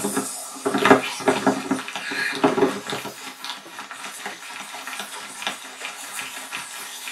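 Hard objects clattering and knocking together in a quick, irregular run, loudest in the first three seconds, then lighter scattered clicks.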